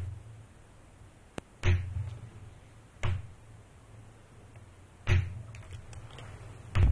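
Four dull thumps, spaced a second or two apart and uneven, each with a deep boom.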